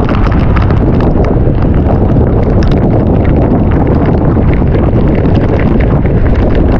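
Strong wind buffeting the microphone: a loud, steady rumble with a dense scatter of small taps through it.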